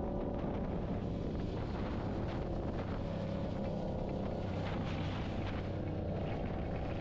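Motorcycle engine running while riding, with wind noise on the microphone.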